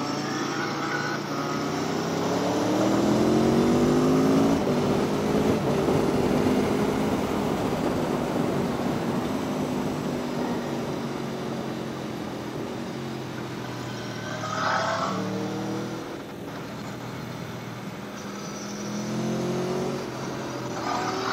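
Aprilia Tuono V4 1100's V4 engine pulling hard out of a bend, its pitch climbing over the first few seconds, then holding and slowly easing off, and rising again near the end. A steady rush of wind and road noise lies underneath.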